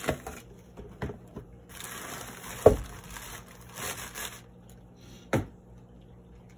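Cardboard packaging handled: a boxed light fixture slid out of a cardboard shipping carton, with rustling and scraping of cardboard and a few knocks, the loudest a little over two and a half seconds in.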